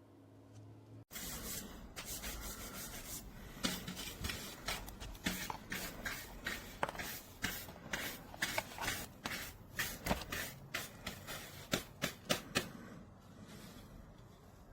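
Handling noise close to the microphone: irregular rubbing with many sharp clicks and taps, starting suddenly about a second in and dying down near the end.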